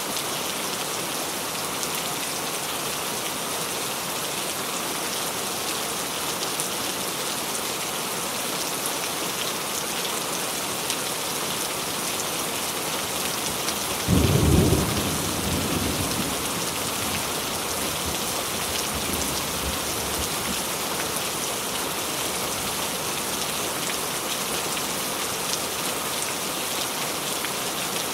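Steady rain falling, with a sudden clap of thunder about halfway through that rumbles away over several seconds.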